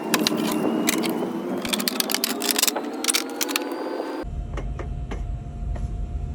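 De'Longhi Magnifica Evo coffee machine running: a motor whine that slowly rises in pitch, with many sharp clicks and rattles, which changes suddenly about four seconds in to a low rumble with a steady hum and a few clicks.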